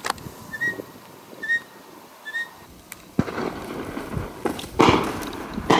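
Two distant shotgun shots near the end, about a second apart, each with a short echo, over a steady rush of wind and ground noise. Before them, a small bird gives four short chirps, about one a second.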